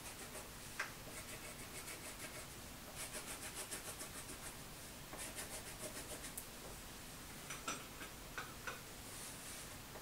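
Faint scratchy strokes of colouring in on paper: bursts of quick back-and-forth scribbling, roughly eight strokes a second, with a few light taps a little before the end.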